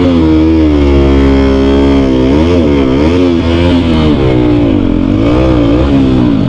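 Small single-cylinder sport motorcycle engine idling with its throttle blipped several times, the pitch rising and falling back with each rev.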